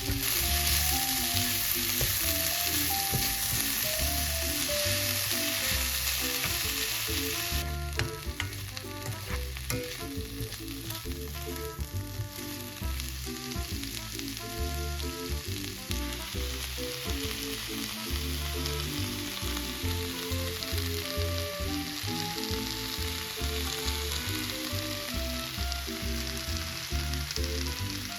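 Julienned potatoes stir-frying in oil in a frying pan, a steady sizzle that drops in level about eight seconds in, with scattered clicks of stirring after that. Background music plays under it.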